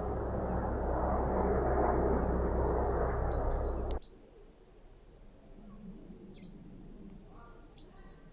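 Small songbirds chirping, short high chirps repeated over and over, with one quick falling whistle a few seconds in. For the first half a loud steady rushing noise lies under them and cuts off suddenly about halfway through.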